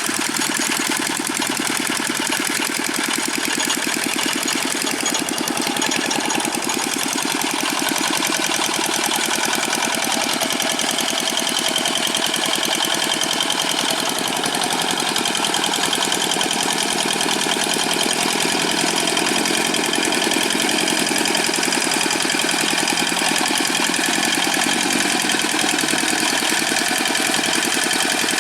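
Old Dongfeng single-cylinder diesel engine of a Quick G600 mini rice-field tractor running steadily with an even knocking beat while the tractor levels paddy soil.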